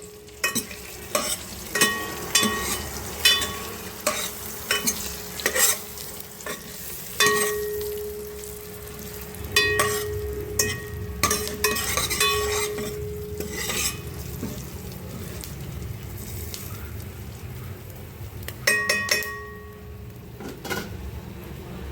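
A metal spoon stirring and scraping in a metal cooking pan, knocking against it at irregular moments so that the pan rings briefly, over a steady sizzle of frying. The knocks come thickly for much of the time, ease off, then come in a quick cluster near the end.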